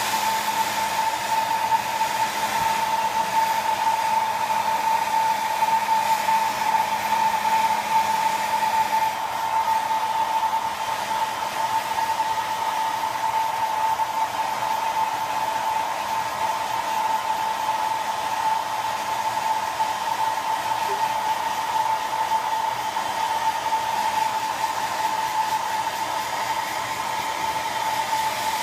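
Hair dryer running steadily: a constant high whine over a rush of air, which softens slightly about nine seconds in.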